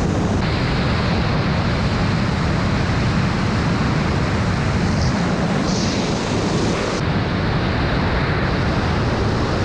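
Steady loud wind rush on the microphone of a wingsuit flyer in flight.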